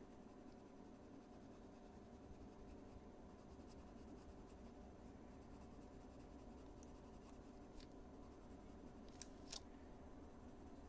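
Faint scratching of a Caran d'Ache Pablo coloured pencil shading on paper, over a steady low hum, with two light clicks near the end.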